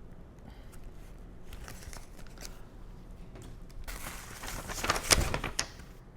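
Packaging being handled during an unboxing: faint rustling and small clicks, then louder crinkling of the packaging about four seconds in.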